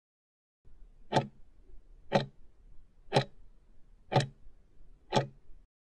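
Countdown timer's clock-tick sound effect: five sharp ticks, one a second, over a faint low noise bed.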